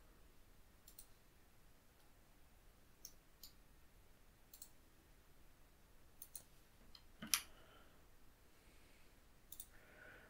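Near silence with a handful of faint computer mouse clicks spread out, one louder than the rest about seven seconds in.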